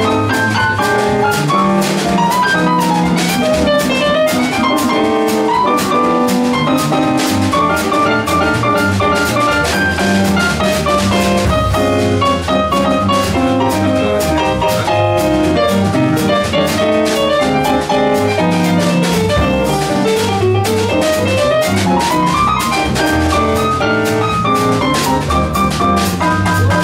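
Live swing jazz combo playing without vocals: piano, double bass, guitar and drum kit. Quick runs of single piano notes ride over a walking bass and steady cymbal time.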